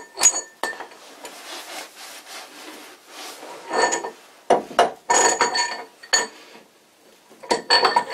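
Cast-iron pulley being slid by hand onto a lathe spindle: metal scraping and rubbing, then metal-on-metal clinks that ring briefly, in several quick groups from about four seconds in.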